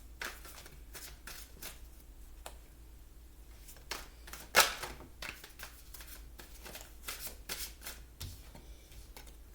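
Tarot cards being handled on a table: a scattered run of soft, sharp card clicks and slaps, with one louder slap about halfway through.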